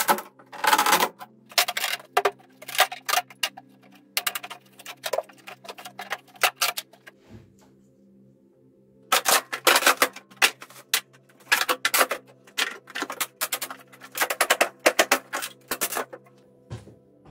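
Rapid, irregular knocking and clattering of a plywood shipping crate being taken apart, its lid and side panels pried loose and handled, in two bursts with a short pause between them, over background music.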